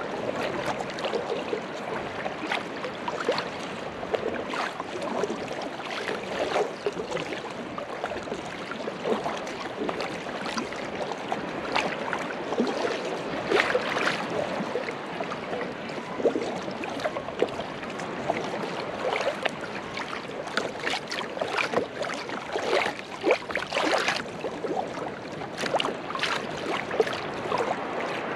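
Water lapping, splashing and gurgling against a plastic kayak hull as the kayak moves, with many small irregular splashes.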